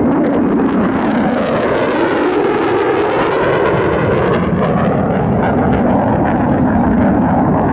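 USAF F-35A's single Pratt & Whitney F135 turbofan giving loud, steady jet noise as the fighter passes and climbs away, its tone sweeping slowly as it goes by.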